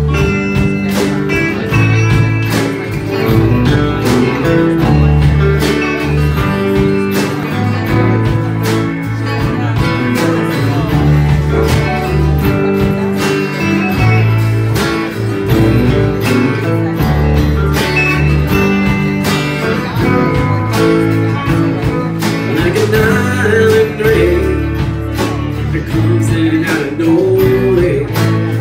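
A live country band playing: many acoustic and electric guitars strumming together over steady drums.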